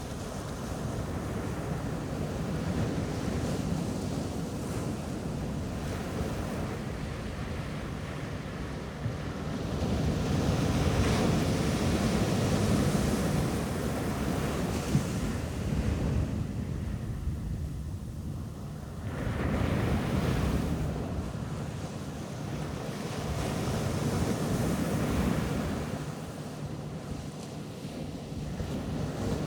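Ocean waves breaking and washing on the beach, a continuous surf that surges louder several times and eases to a brief lull just past halfway, with wind on the microphone.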